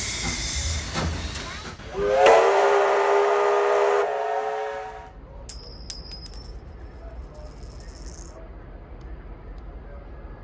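Steam locomotive hissing steam, then sounding its steam whistle, several tones together held for about three seconds. A few seconds later comes a brief high ringing with a few clicks, over a low steady background.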